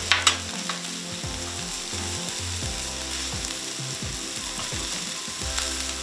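A metal spatula scrapes and clacks on a hot steel flat-top griddle as rice is pushed and spread out, over the steady sizzle of frying food. A sharp clack just after the start is the loudest sound.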